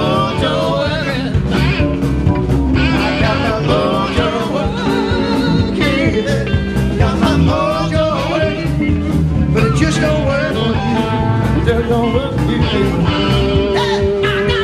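Live rock band playing with a steady beat: electric guitars, drums and male singing.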